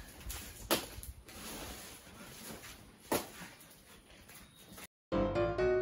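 Hot stones of an umu fire knocking and clacking as they are shifted with tongs: a few sharp knocks over a low fire-and-outdoor background. Near the end the sound cuts out and piano music begins.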